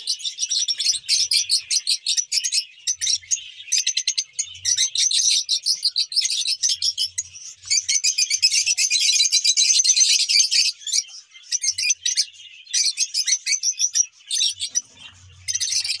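A flock of lovebirds chattering in an aviary: a dense stream of rapid, shrill chirps, busiest and loudest about eight to ten seconds in.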